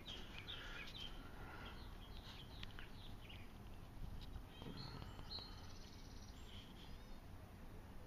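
Faint outdoor ambience: small birds chirping now and then, in short high calls over a low, steady background rumble.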